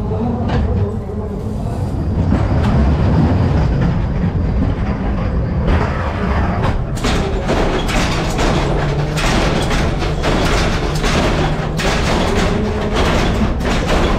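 Ghost train car rolling along its track with a continuous low rumble. From about six seconds in there is dense rattling and clattering.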